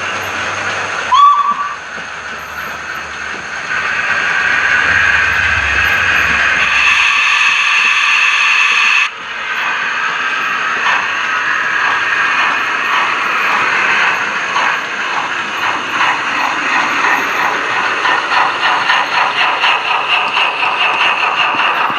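Steam locomotive sounds accompanying a model train: a short whistle blast about a second in, then a steady hiss of steam that stops abruptly, then exhaust chuffs from about ten seconds in that quicken as the engine pulls away.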